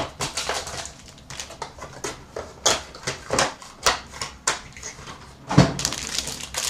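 Crinkling and rustling of foil hockey card packs and cards being handled, in a string of short crackly clicks. A single heavier thump comes about five and a half seconds in.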